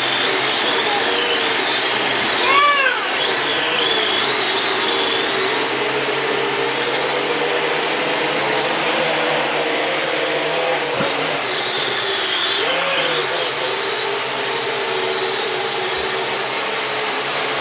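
Fast Lane Nebula Cruiser RC quadcopter's small electric motors and propellers whirring steadily in flight. The whine swoops up and back down about two and a half seconds in and again around thirteen seconds as the throttle changes.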